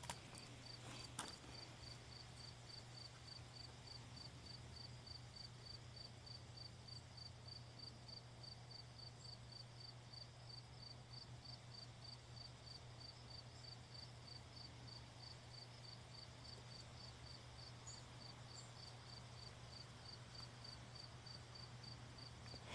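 Faint, evenly repeating high chirps of a cricket, a little over two a second, over a low steady hum, with a couple of small clicks in the first second and a half.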